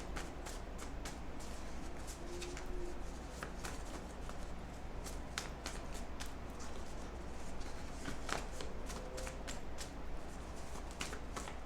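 A deck of oracle cards being shuffled by hand: a long run of light, irregular card clicks and flicks over a faint steady low hum.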